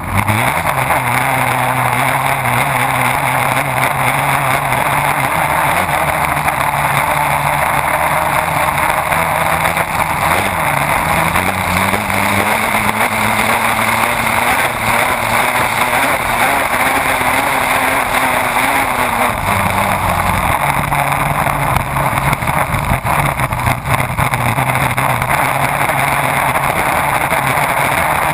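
Race boat's engine running hard at speed, under a loud steady rush of spray and water. About ten seconds in the engine note climbs gradually, then drops back sharply a little under twenty seconds in.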